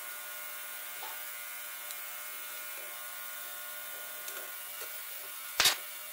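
Steady electrical buzzing hum, with faint small clicks as metal carburetor parts are handled during disassembly, and one sharp metallic click near the end.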